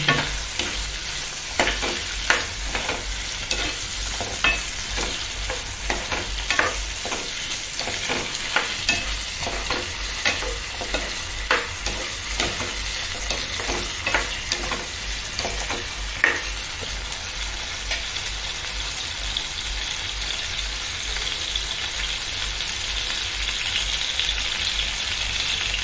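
Chopped tomato, bottle gourd and drumstick pieces frying in hot oil in a nonstick pan, making a steady sizzle. A plastic spatula scrapes and taps against the pan while stirring until about two-thirds of the way through, then only the sizzle remains.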